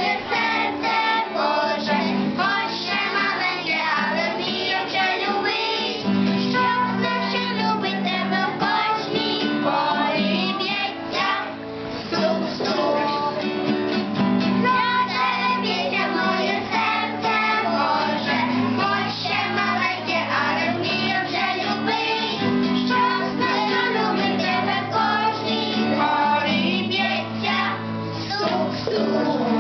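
A song: a voice singing a melody over guitar accompaniment.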